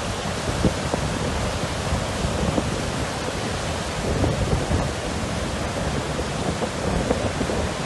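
Heavy downpour: a steady, even rush of rain, with low rumbling buffets of wind on the microphone.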